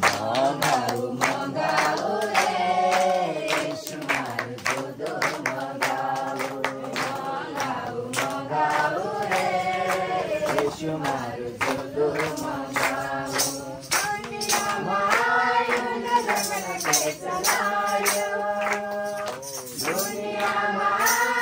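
A group of adults and children sing a Powari-language worship song together, with steady rhythmic hand clapping.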